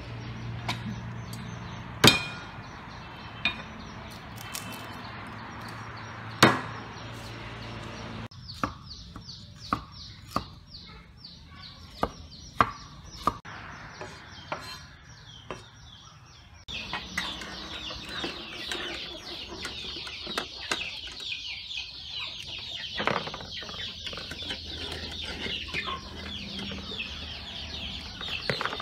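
A cleaver striking a wooden chopping board in a few sharp chops, the loudest two about two and six seconds in, with lighter knocks after. Chickens cluck and chirp throughout, the quick high chirping getting denser from about halfway through.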